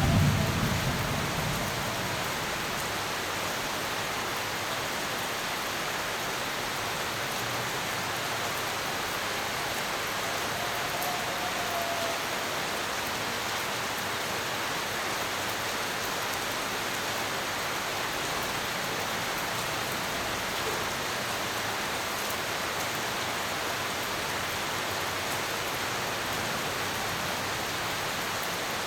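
Steady rain falling, an even hiss, with the last of a thunder rumble dying away in the first second or two.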